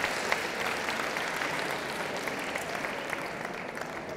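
Audience applauding, slowly dying away.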